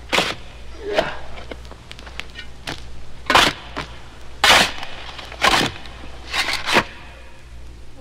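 Sound-effect footsteps of a mummy dragging itself along: slow, irregular scraping steps about a second apart, some in quick pairs, over a low steady hum.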